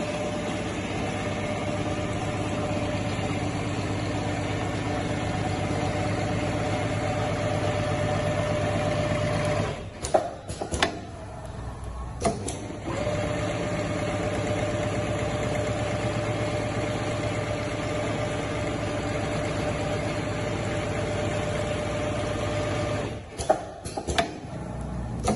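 Richpeace automatic pattern sewing machine running at a steady speed while it sews a zigzag stitch, a fast, even rattle of the needle. Twice it stops for a couple of seconds with a few sharp clicks, then starts sewing again.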